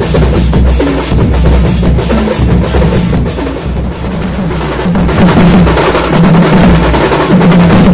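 Festival drum band playing a loud, fast, dense beat, with a held low tone joining more strongly in the second half.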